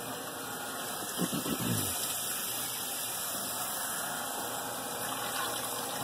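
Steady rush of water running through a Follett ice machine's reservoir and drain during a plain-water rinse of cleaning chemicals.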